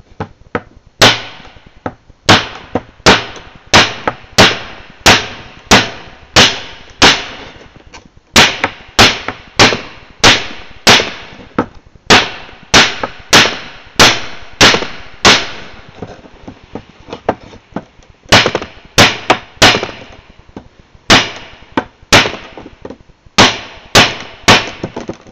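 Stainless Randall Model 28 knife chopping into a fairly seasoned wooden branch: a steady series of sharp chops, a little under two a second, with a couple of short pauses.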